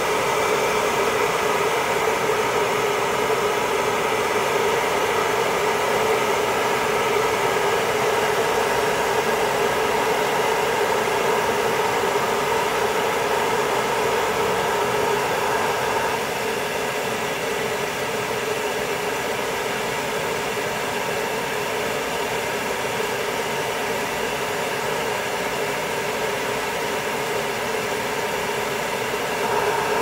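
Blow dryer running steadily, drying a miniature dachshund's coat: a rush of air with a steady hum in it. The sound drops slightly in level about halfway through and comes back up at the end.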